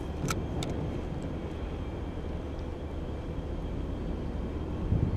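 Wind rumbling steadily on the microphone, with two short sharp clicks in the first second as a hand works the spinning reel after a cast.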